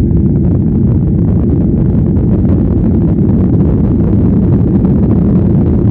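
Airliner cabin noise: the loud, steady low rumble of jet engines and airflow heard from inside the passenger cabin.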